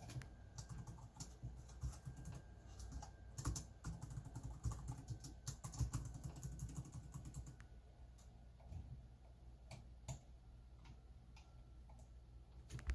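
Typing on a computer keyboard: quick runs of keystrokes for the first several seconds, then scattered single clicks.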